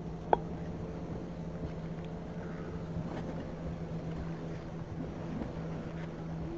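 A steady engine hum, with one short sharp click about a third of a second in.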